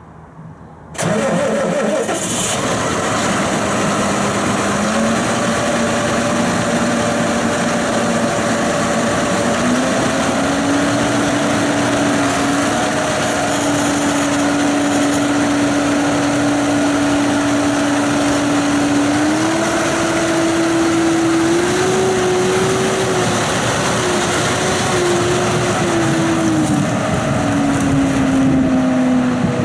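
2015 John Deere 6215R tractor's six-cylinder diesel engine starting about a second in, catching at once and then running steadily. Its speed steps up a few times over the next twenty seconds and drops back near the end.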